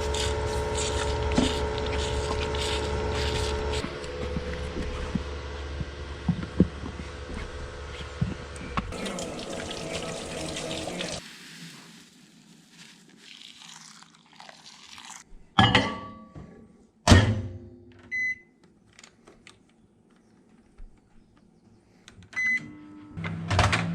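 A vehicle engine running steadily, then switched off about eleven seconds in. Then, in a quiet room, a few sharp knocks and thuds and two short high beeps, like a microwave oven's.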